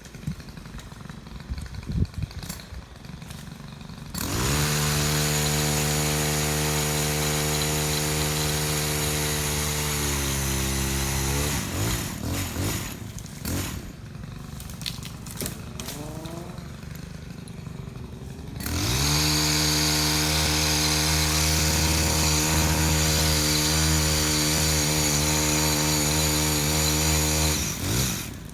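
Chainsaw run at full throttle twice, about seven and nine seconds each, dropping back to a quieter idle in between; the pitch sags just before the first run ends.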